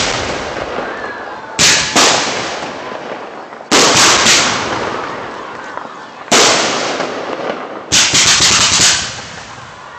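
Fireworks bursting overhead at close range: loud bangs, each with a long echoing tail. There is a pair about a second and a half in, a quick cluster near four seconds, a single one just past six seconds, and a rapid string of about five near the end.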